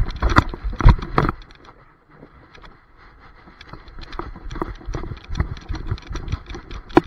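A dog running on grass, heard through a camera strapped to its body: rapid, loud thumps from its strides and the jolting mount in the first second or so, then quieter, then evenly paced footfall thumps again from about four seconds in, with one sharp knock near the end.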